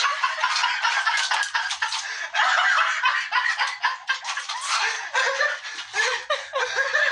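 A person giggling and snickering, over rapid rustles and scrapes from a cat scrabbling at objects in a bathtub.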